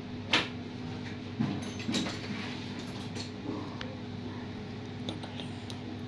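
Metal tweezers clicking and scraping against the end of a flat ribbon cable as one extra conductor is picked out of it. There is a sharp click about a third of a second in, then a few softer scrapes and clicks around one and a half to two seconds, over a steady low hum.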